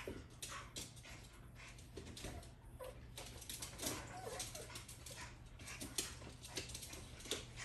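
Small dogs scuffling and tussling in a padded dog bed, with rustling and light scrabbling throughout and a few short whimpers a few seconds in.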